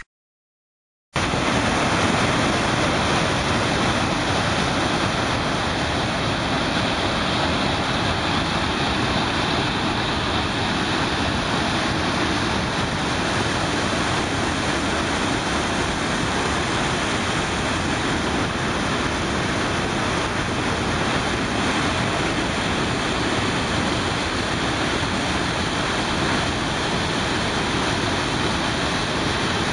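A waterfall in flood: a steady, loud rush of white water that starts suddenly about a second in, after a moment of silence.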